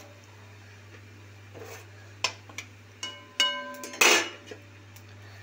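Metal kitchen utensils knocking against a cooking pan: a few sharp clicks, one clink that rings for most of a second about three seconds in, and a short scraping rush about four seconds in, over a faint steady hum.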